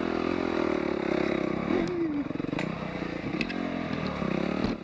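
Dirt bike engine running under a rider on a trail, its pitch rising and falling with the throttle about two seconds in. The sound drops away sharply at the very end.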